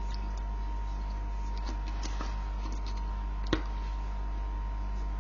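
Steady low electrical hum with a thin constant whine, over which come a few light clicks and one sharper click about three and a half seconds in.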